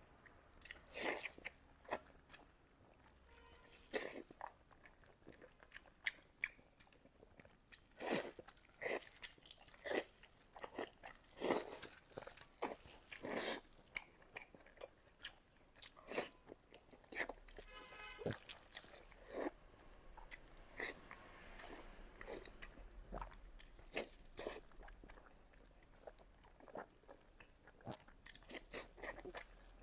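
A person chewing and biting mouthfuls of pork belly, with irregular sharp mouth clicks and smacks.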